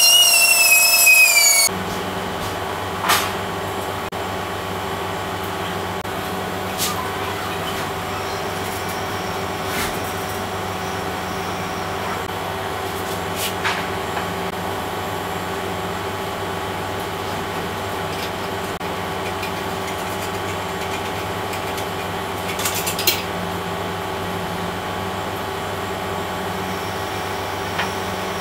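A small rotary die grinder with a sanding drum whines, its pitch wavering, then cuts off after about a second and a half. After that a steady machine hum carries on, with a few sharp ticks and clicks from a hand scraper working on the plastic model.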